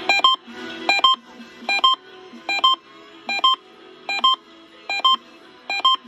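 Uniden BC370CRS scanner sounding its alert: a short two-note electronic beep repeated about every 0.8 s, eight times, the signal that it has picked up an alert. Faint radio music plays underneath.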